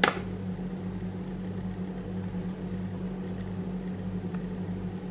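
Steady low mechanical hum over a faint hiss, like a small motor or appliance running; a brief click right at the start.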